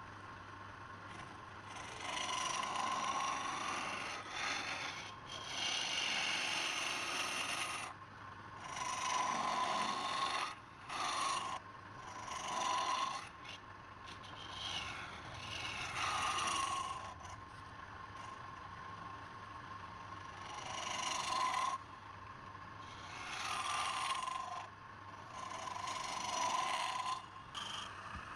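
A tool or abrasive rubbing against wood spinning on a wood lathe, in about a dozen passes of one to three seconds with short breaks between them. A thin whistling tone comes with each pass, and a steady low hum runs underneath.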